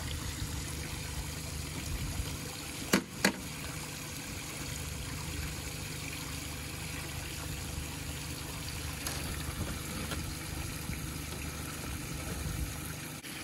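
Aerator pump hose pouring a steady stream of water into a plastic livewell tub, a continuous trickling and splashing. Two sharp knocks come close together about three seconds in.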